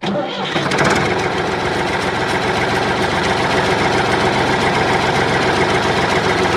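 Tractor engine running steadily at idle with a fast, even knock. It starts and cuts off suddenly.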